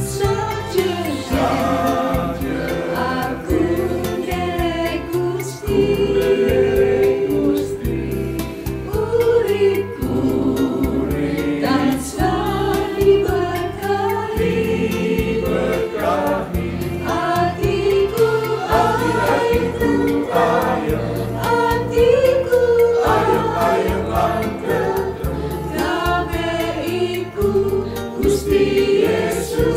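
Mixed choir of women's and men's voices singing a Javanese-language Christian hymn in harmony, continuously and at a steady volume.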